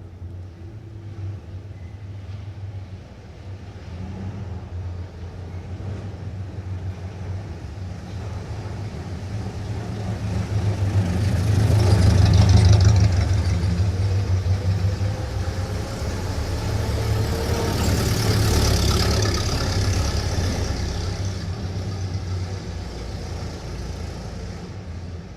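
Suburban street traffic of 1940s-era motor vehicles: a steady low engine rumble with vehicles driving past. The loudest pass swells and fades about halfway through, and a second one passes nearer the end.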